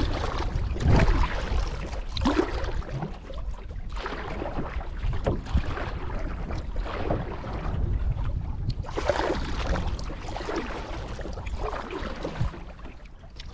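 Canoe paddle strokes dipping and pulling through lake water, a splash every second or two, over a low rumble of wind on the microphone.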